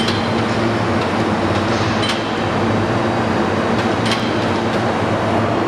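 Steady industrial machinery noise in a factory hall: a constant low hum under an even wash of noise, with a short sharp tick about every two seconds.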